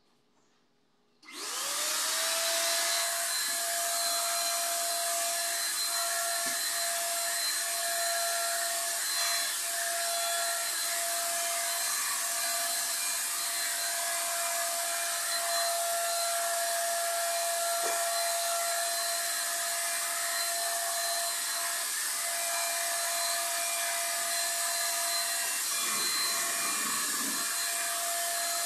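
Electric paint sprayer switched on about a second in: its motor spins up quickly, then runs steadily with a whine while spraying paint onto the cabinet.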